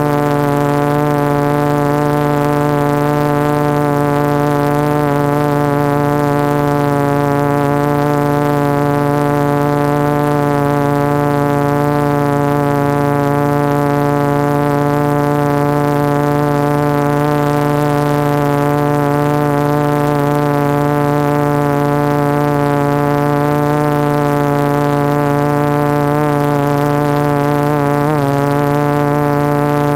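Multistar 2212 920kv brushless motors spinning 12-inch carbon fibre propellers on a 450-size quadcopter hovering, heard from the camera on board as a steady, many-toned whining hum. The pitch wavers briefly near the end as the motors adjust.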